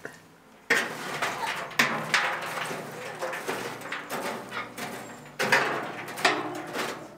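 Metal poker raking glowing coals in a steel fire box: repeated scraping and clanking of metal on metal and on coals, starting about a second in.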